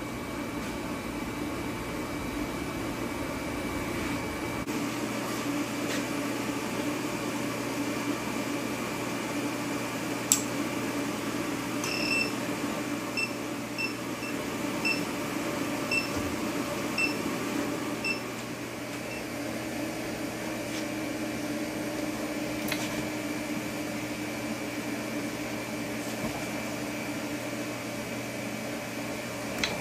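Induction heater running with a steady electrical hum and fan noise while a small part heats in its copper coil. About eight short high beeps sound in the middle, and there are a couple of single clicks.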